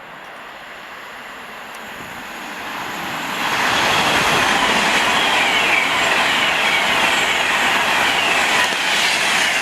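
Class 390 Pendolino electric train passing, the rush of its wheels on the rail building over the first few seconds to a steady, loud sound. A repeated high, falling whine runs over it.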